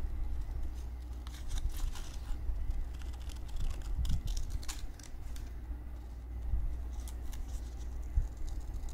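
Scissors snipping through paper in a run of short, irregular cuts.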